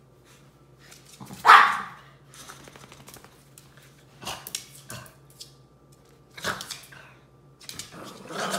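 Two shih tzus play-fighting over a dog bed, barking: one loud bark about a second and a half in, then several shorter, quieter barks.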